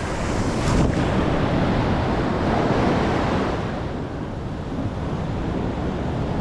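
Heavy surf breaking and washing up the sand, a steady rushing that swells as a wave comes in, with wind buffeting the microphone.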